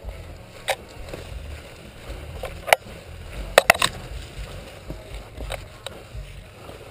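Scattered sharp snaps and clicks over a low rumble of movement and gear handling, with three snaps in quick succession a little past the middle.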